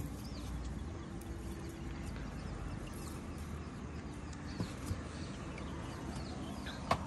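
A fishing net being hauled by hand into a small boat on a lake: a few small knocks and ticks from the net and its weights, over a low steady outdoor background with faint bird chirps.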